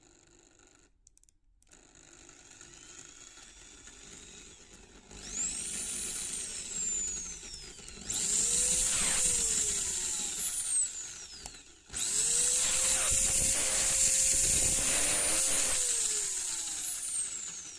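Hitachi DV16V hammer drill running under its variable-speed trigger: it turns slowly at first, speeds up with a rising whine and slows again, then runs at full speed twice, each time winding down with a falling whine after the trigger is let go.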